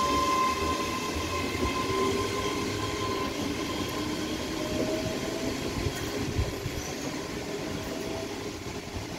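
ScotRail Class 385 electric multiple unit moving away along the platform, a steady rail rumble with a whine of several tones, one of which rises in pitch partway through. It grows slightly quieter as the train draws off.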